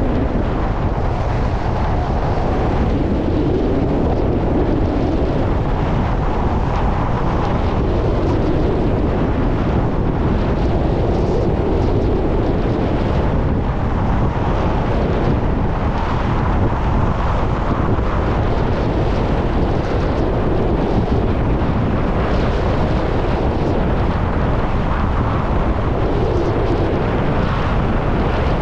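Steady wind rushing over the microphone of a skier moving downhill at speed, with skis sliding over the snow underneath.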